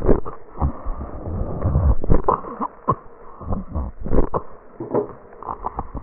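Breathing heard through a stethoscope over the trachea, with many short crackles popping over a low, coarse rumble of rhonchi: signs of secretions in the airway.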